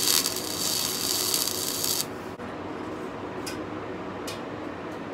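Electric arc welding on 16-gauge hollow steel tubing: a loud, dense crackling hiss that cuts off abruptly about two seconds in. After it come a few faint light clicks.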